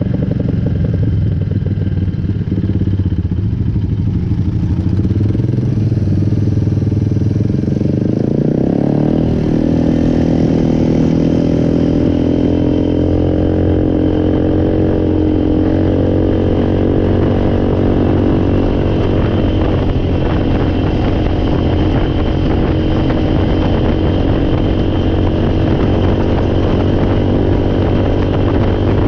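Four-wheeler (ATV) engine running steadily, rising in pitch about eight or nine seconds in and then holding at the higher speed.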